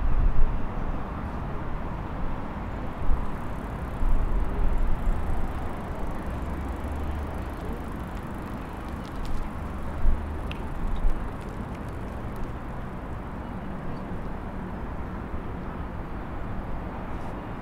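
Outdoor background noise: a steady rumbling hiss that swells and eases in gusts, with a few faint clicks.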